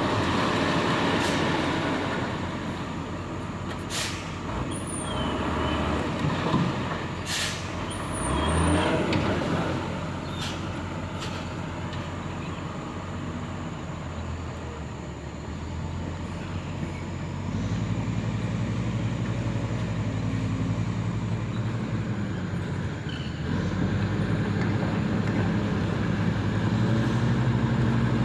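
Heavy diesel construction machinery running, with a couple of sharp metallic knocks. About two-thirds of the way through, a deeper engine note comes in, and it rises toward the end as the machine works harder.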